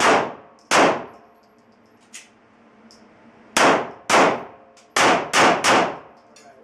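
Glock pistol fired seven times in a timed string. Two shots come under a second apart, then after a pause of nearly three seconds two more half a second apart. Three quick shots follow, about a third of a second apart.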